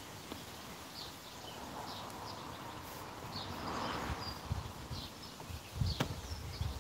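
Garden birds chirping off and on, over the soft rubbing and dull thumps of naan dough being kneaded by hand on a floured wooden table. There is a sharp knock near the end.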